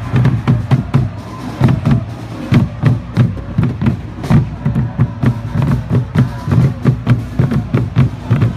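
Background music with a steady, heavy drum beat.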